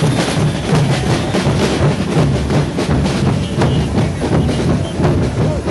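Carnival drum band playing live in the street: many snare and bass drums beating a steady, driving rhythm together.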